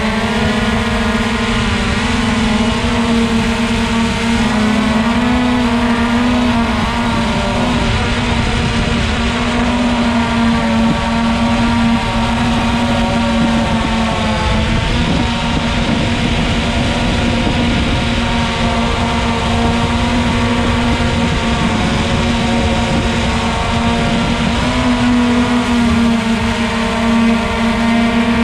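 Motor and propeller of a radio-controlled aircraft running steadily: a continuous buzzing drone with small shifts in pitch, over a rush of wind noise.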